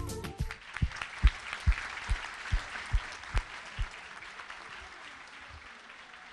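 A banquet-hall audience applauding, the clapping slowly fading away. The last beats of a drum-kit jingle end in the first half-second, and a run of low thumps, about two a second, sounds through the applause.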